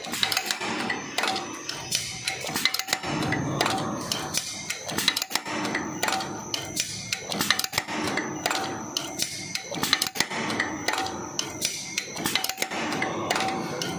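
Paper muffin cup forming machine running: fast, irregular mechanical clicking and clacking with a faint steady tone underneath.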